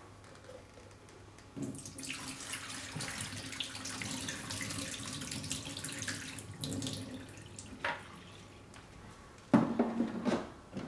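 Water pouring out of a Kärcher steam cleaner's plastic water tank into a stainless steel sink for several seconds. Near the end come a click and a few loud plastic knocks as the tank is set back into the steam cleaner's body.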